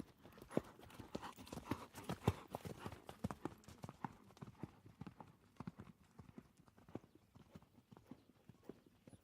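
A rapid, uneven clip-clop of hard knocks, several a second, loudest in the first few seconds and growing fainter after.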